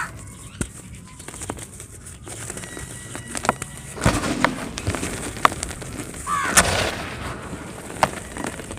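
Dry cement chunks crumbling and cracking: scattered sharp clicks and short gritty crunches, the biggest about four seconds in and again about six and a half seconds in. A short bird chirp comes just before the second crunch.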